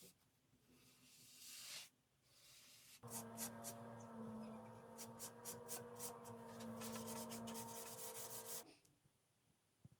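Faint rubbing strokes on wood. From about three seconds in until near the end a steady hum joins them, with a quick run of scratchy strokes over it, then it stops suddenly.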